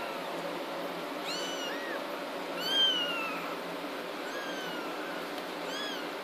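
18-day-old kittens mewing: about five short, high-pitched mews over a steady background hiss. The loudest and longest mew comes nearly three seconds in and falls in pitch.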